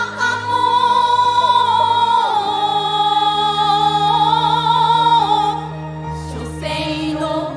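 A group of women chanting shigin, Japanese recited poetry, in unison: one long drawn-out note with a wavering ornament, easing off about two-thirds through before a new phrase begins near the end.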